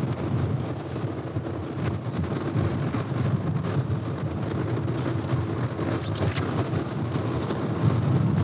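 Fishing boat's engine running with a steady low hum, mixed with wind on the microphone and the wash of a choppy sea.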